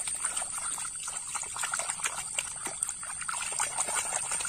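Shallow water splashing and trickling in quick, irregular little splashes as a hand scrubs a small plastic toy animal clean in it.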